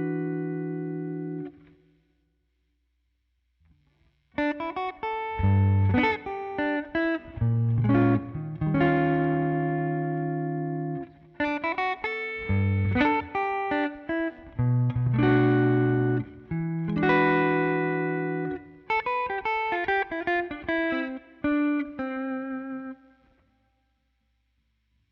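Electric guitar with Zexcoil Legacy Signature pickups, played clean through a Line 6 Helix Twin Reverb amp model. A chord rings out and fades. After a short pause comes a passage of chords, ending on one that rings out.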